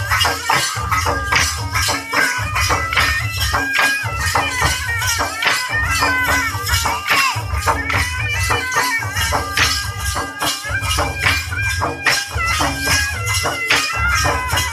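Chhattisgarhi folk dance music: a high stepping melody line over a steady, heavy drum beat, with dense rattling, clicking percussion throughout.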